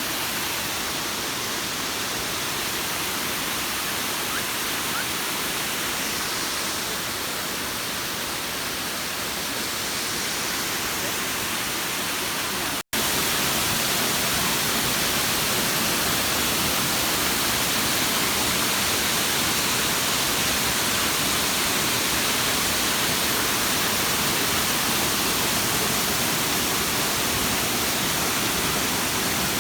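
Steady rush of a waterfall, an even hiss of falling water. It breaks off for an instant about 13 seconds in and resumes slightly louder.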